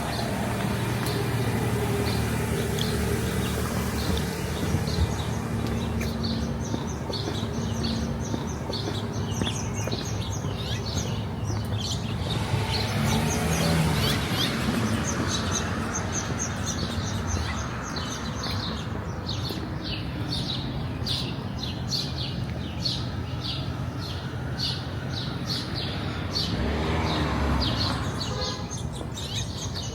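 Small birds chirping in quick repeated high notes over steady street traffic hum, with vehicles swelling past, one around the middle and one near the end.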